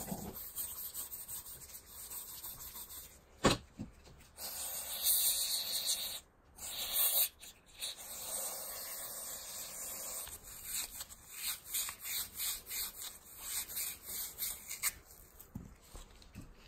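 The rusty threaded bore of a small screw jack being scrubbed out, first with a twisted-wire tube brush and then with a stick. It makes scratchy rubbing in quick strokes that stops and starts, with one sharp knock about three and a half seconds in.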